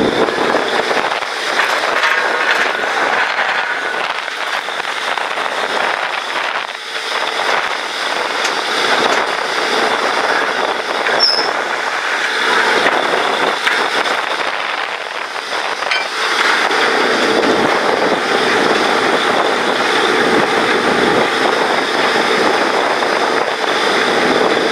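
Truck-mounted borewell drilling rig running at work: a steady, loud mechanical din with a hissing noise, the level swelling and dipping a little.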